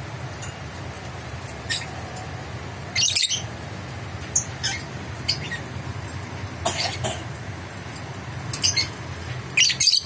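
Lovebird giving short, sharp, high-pitched chirps and squawks at irregular intervals, loudest about three seconds in and near the end, over a steady low hum. The owner describes the unpaired bird as in strong breeding condition (birahi tinggi).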